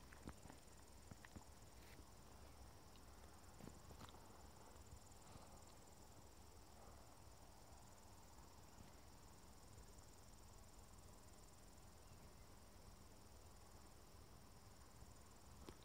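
Near silence: faint outdoor ambience, a low rumble under a steady high-pitched hiss, with a few faint ticks.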